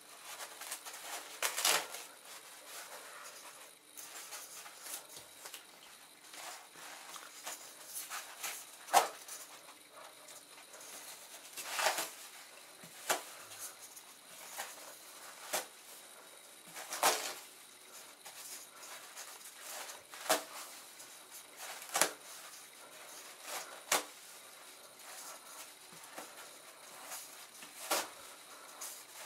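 Toilet paper rustling as it is pulled off the roll by hand, with a sharp crinkle or snap every few seconds.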